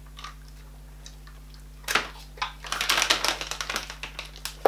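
Plastic treat bag crinkling in the hands, a dense run of quick crackling clicks in the second half, after a single sharp click about two seconds in.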